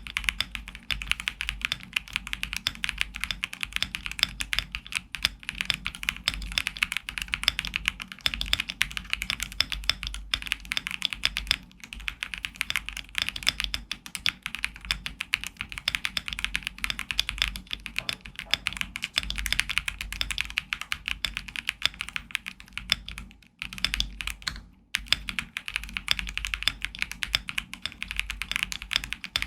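Fast, continuous typing on a GMK67 mechanical keyboard with WS Red linear switches and PBT keycaps: dense key clacks with a low thock under each press, broken by two short pauses about three-quarters of the way through.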